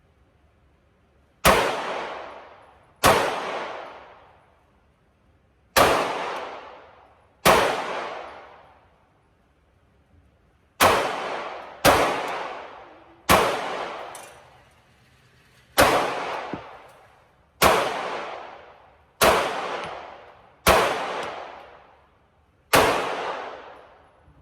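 Glock 43 9mm pistol fired in slow single shots, twelve in all, one to three seconds apart. Each shot trails off in a long echoing decay.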